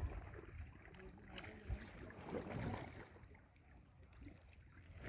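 Calm sea water faintly lapping and sloshing in small waves.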